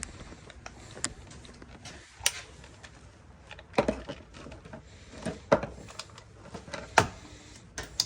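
Irregular sharp clicks and light knocks of hands handling a multimeter and its test leads while setting it up to measure a run capacitor's microfarads.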